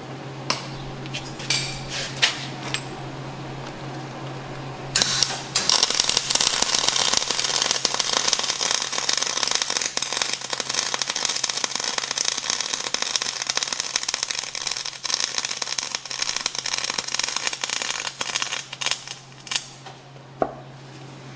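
Lincoln wire-feed welder arc crackling steadily as a bead is run on the steel blade yoke of a Cat D5C dozer; it starts with a brief sputter about five seconds in and stops about five seconds shy of the end. A few sharp clicks come before the arc strikes, over a steady low hum.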